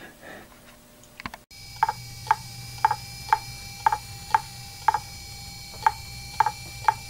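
A powered Fujitsu MHK2048AT 2.5-inch laptop hard drive starts about a second and a half in. It runs with a steady hum and tone, and its heads click sharply about twice a second.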